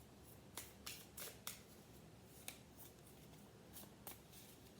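Oracle cards being handled and drawn from the deck: a handful of short, faint papery clicks and snaps, scattered over a near-silent room.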